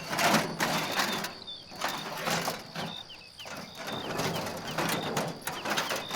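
Short, repeated high bird chirps, some sliding downward, over a string of scraping and rustling noises.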